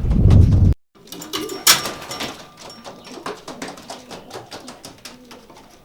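Wind buffeting the microphone with a low rumble, cut off abruptly within the first second. Then sport racing pigeons cooing and shuffling in their transport basket, with many small taps and scrapes and one sharp knock or wing clap nearly two seconds in.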